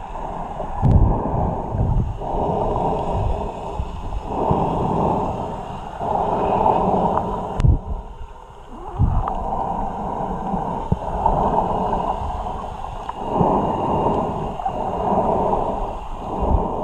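Muffled water sound, as heard by a camera underwater: sloshing and gurgling that swells and fades every second or two, with a few dull knocks.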